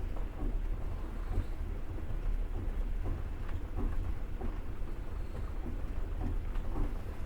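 Passenger train in motion heard from inside the carriage: a steady low rumble of the wheels on the rails, with a few faint knocks.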